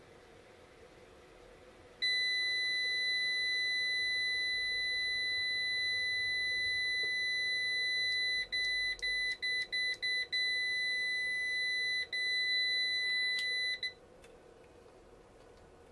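Solar inverter's piezo buzzer sounding a steady, high-pitched alarm beep for about twelve seconds, the warning an inverter gives when it reports a fault. The tone drops out briefly several times in its second half, then stops abruptly.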